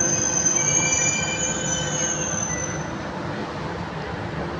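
Delhi Metro train moving at the platform, heard through the platform screen doors: several high, steady whining tones over a steady rumble. The tones fade out about halfway through and the whole grows quieter.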